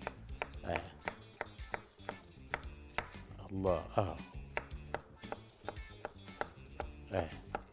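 A knife slicing raw potato on a wooden cutting board: a quick, irregular run of sharp knocks, a few each second, as the blade cuts through and strikes the board.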